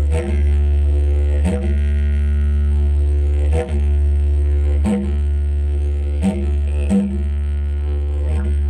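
Didgeridoo droning on one steady low note, rich in overtones, with short sharp accents breaking in every one to two seconds.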